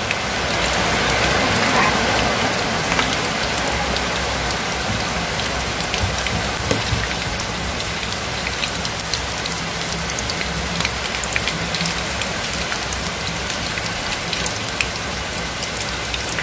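Batter-coated shrimp deep-frying in a wok of hot oil: a steady sizzle scattered with many small pops and crackles.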